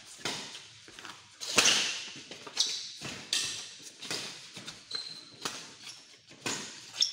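Badminton rally: rackets striking the shuttlecock in a run of sharp hits, roughly one every half second to a second, echoing in a large hall, with a couple of short high squeaks between hits.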